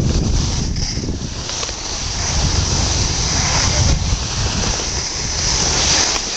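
Wind buffeting the microphone of a camera carried by a moving skier, a loud low rumble, over a steady hiss of skis sliding on packed snow.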